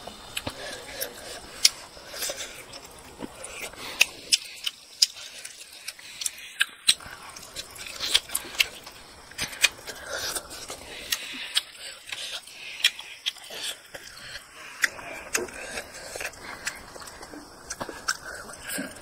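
Close-up mouth sounds of a person eating cooked chicken heads and rice by hand: wet chewing and smacking with frequent sharp, irregular clicks, a few each second.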